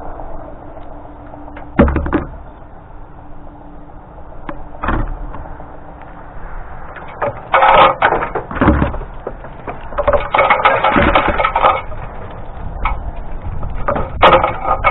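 Hand tools knocking against and scraping the broken top of a brick chimney, loosening crumbling mortar and brick. There are sharp knocks about two and five seconds in, then rasping scrapes in three stretches.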